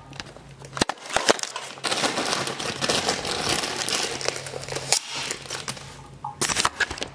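Plastic bag crinkling and rustling as it is handled, with sharp clicks and knocks about a second in and again near the end.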